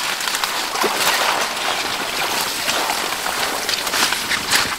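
Water splashing and water hyacinth leaves rustling as a man in the water pulls at a dense mat of the plants, clearing a way for a wooden pirogue choked in by the weed.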